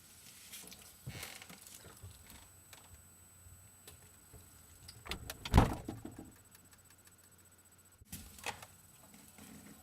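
Quiet handling noises, scattered clicks and rustles, with one loud, short, low thump about five and a half seconds in and a sharp click near the end.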